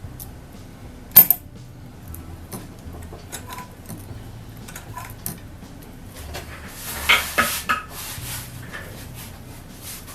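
Light clicks and metallic clinks of parts and tools being handled at a sewing machine, with one sharp click about a second in and a quick run of louder clinks around seven seconds in.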